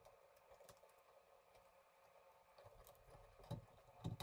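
Near silence, with faint scattered ticks of pliers twisting three bare copper ground wires together and a couple of sharper clicks near the end.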